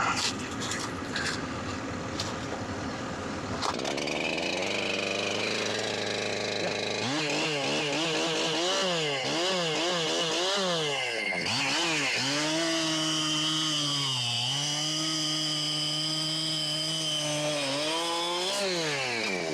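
Chainsaw cutting into a tree stump in small bites, the engine revving up and falling back repeatedly. It then holds at high revs through a longer cut and drops off near the end.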